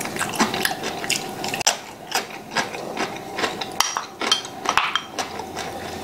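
Eating at the table: chopsticks and a spoon clicking against ceramic bowls and plates, several short clicks a second, with chewing.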